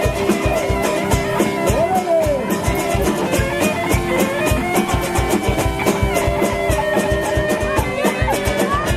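Music with guitar over a steady drum beat.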